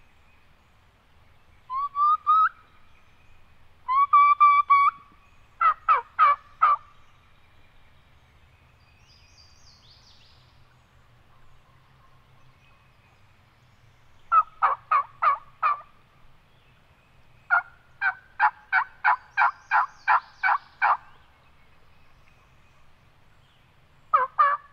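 Turkey call worked by a hunter imitating a hen: a couple of rising notes, then runs of loud, sharp yelps, the longest about a dozen notes, calling to a gobbler.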